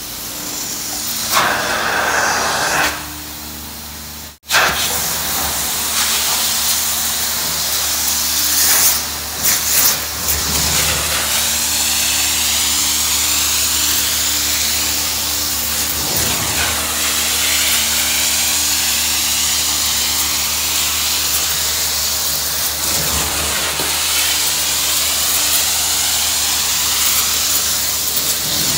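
Truck-mounted carpet extraction wand spraying hot water and sucking it back up as it is pushed over carpet: a steady loud hiss and rush of air over the low hum of the vacuum system. A brief dropout about four seconds in.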